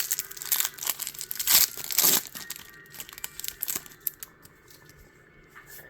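Foil Pokémon booster pack wrapper being torn open and crinkled: a dense run of crackles for about two seconds, then sparser crinkles that die down.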